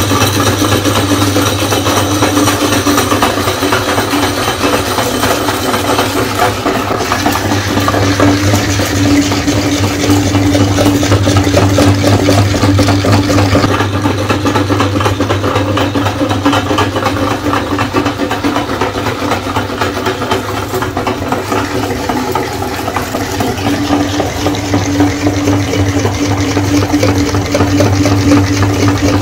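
Electric meat grinder running steadily with a constant deep motor hum, grinding soft ice cream bars through its cutting plate.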